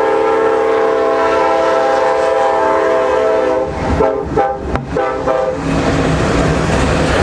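Locomotive air horn sounding one long held chord, then several short broken blasts about four to five and a half seconds in. After that comes the lower, steady noise of the passing train.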